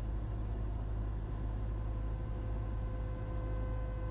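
Cessna 172's engine and propeller as a steady low drone heard through the cockpit intercom, with a faint steady hum over it.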